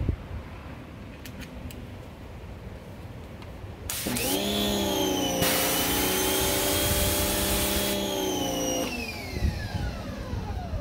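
Giraffe Tools Grand Falls 2200 PSI electric pressure washer's motor starting with a rising whine about four seconds in, then running steadily. Its water jet hisses loudly for a few seconds while the wand sprays. The motor then winds down with a falling whine near the end.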